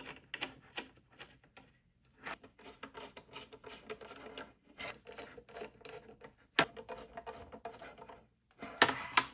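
A Raspberry Pi Zero board being handled and fitted onto a Pi Hat in a 3D-printed plastic base: rubbing and scraping of the parts with scattered small clicks, one sharp click about six and a half seconds in, and a cluster of louder clicks near the end.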